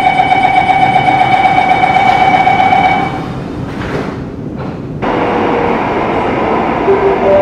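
Bombardier Movia C951 metro train's door-closing warning tone, one steady high tone held for about three seconds while the doors shut. About five seconds in, the steady rushing noise of the train running starts suddenly.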